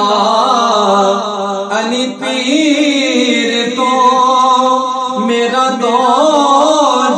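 A man singing a Punjabi naat, a devotional Islamic song, in long wavering lines over a steady background drone.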